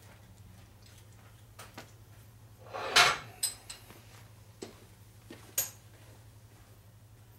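Workshop sounds of metal parts being handled: a few sharp metallic clicks and knocks, with one louder short rushing scrape about three seconds in, over a steady low electrical hum.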